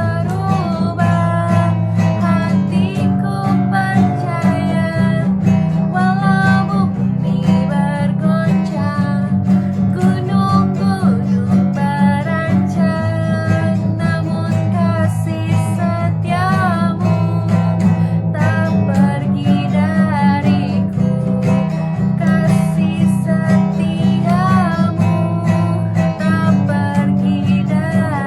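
Praise-song music led by strummed acoustic guitar.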